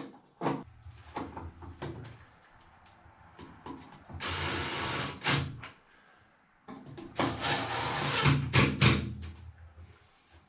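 Cordless drill driving screws into an electrical box at the ceiling: two runs, one a little after four seconds and a longer one from about seven seconds, with handling clicks and knocks between.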